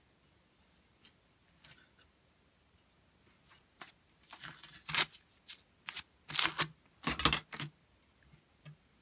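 Masking tape being peeled off a wooden axe handle: a series of short ripping pulls that starts about four seconds in and lasts about four seconds.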